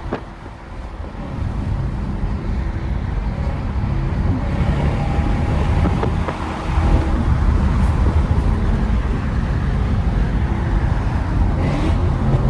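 Lexus GS430's 4.3-litre V8 with its catalytic converters removed, pulling under acceleration; the engine and exhaust note build over the first few seconds, drop off briefly a little past halfway, then come back louder.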